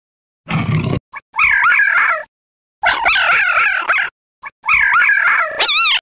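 Black-backed jackal calling: a short rough yap, then three bouts of wavering, yipping howls about a second each, the pitch rising and falling several times in every bout.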